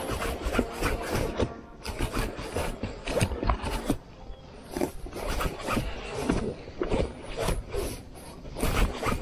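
Spinning reel being cranked against a hooked fish, most likely a striped bass: a run of uneven scraping clicks, several a second, mixed with clothing rubbing close to the mic.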